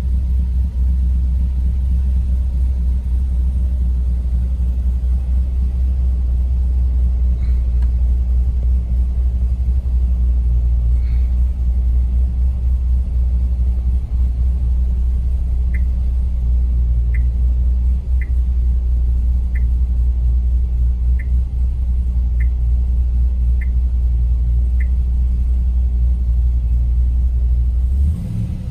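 HSV GTS Maloo's supercharged 6.2-litre V8 idling steadily at about 900 rpm, cold, just after start-up, heard from inside the cabin as a deep, even rumble. Midway through, eight short faint beeps sound about a second apart.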